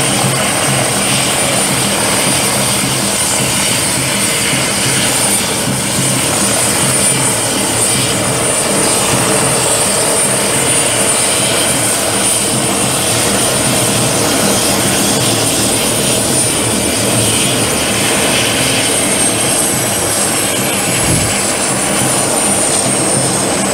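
Mil Mi-17 transport helicopter idling on the ground with its rotors turning: a loud, steady rotor and twin-turbine racket with a constant high turbine whine. Near the end a second high whine starts to fall in pitch.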